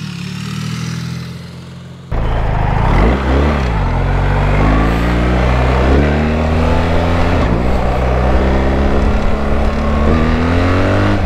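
BMW R1300GS's 1300cc boxer twin engine on its stock exhaust, heard faintly from the roadside for about two seconds, then loud up close as the bike accelerates, its pitch rising and falling with the throttle over wind and road noise.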